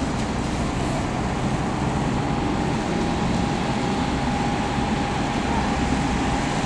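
Jet airliner engines running: a steady roar with a thin, steady whine above it.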